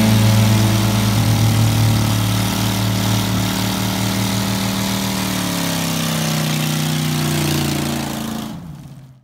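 Car engine held at high revs during a burnout, the rear wheels spinning on dirt. About five seconds in, the revs start falling, and the sound fades out near the end.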